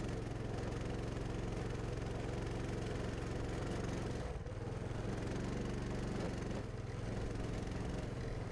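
Coleman CT200U mini bike's 196cc single-cylinder four-stroke engine running steadily at full throttle while climbing a muddy, snowy trail, with two brief dips in the engine note in the second half.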